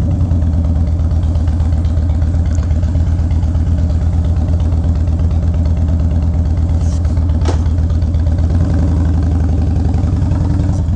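A 2011 Harley-Davidson Wide Glide's Twin Cam 96 V-twin idling steadily with an even pulsing beat.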